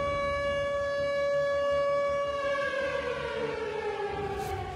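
Siren sounding one steady tone, then winding down, its pitch falling through the last two seconds.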